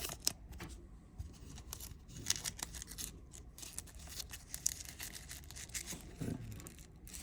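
Trading cards being handled and flipped through: faint scattered clicks and soft rustles.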